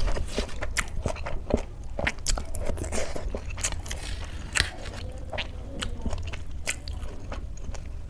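Close-up eating sounds: irregular chewing and crunching of food in the mouth, with small wet clicks and occasional scrapes.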